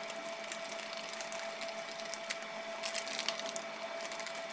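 Thick ragda of mashed chickpeas and potato simmering in a non-stick pan, its bubbles popping in small scattered crackles with a brief flurry about three seconds in, over a faint steady hum.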